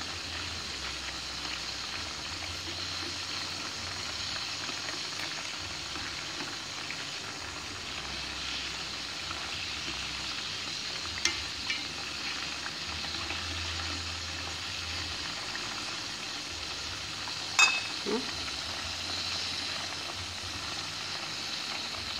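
Strips of marinated chicken and pork jerky deep-frying in oil over low heat: a steady sizzling hiss, with a few sharp clicks, the loudest about 17 seconds in.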